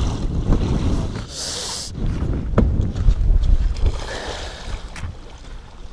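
Wind rumbling on the microphone, with a short splash about a second and a half in from a hooked muskie thrashing at the surface beside the boat.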